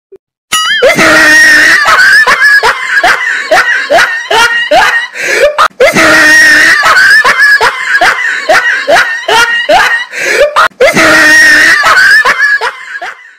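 Loud looped sound clip of a high, excited voice making rapid rising cries, like screaming laughter, played about three times over and cutting off suddenly.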